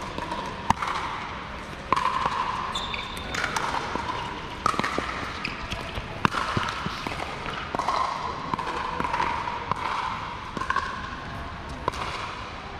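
Pickleball rally: paddles striking the plastic ball with sharp pops, one every second or two.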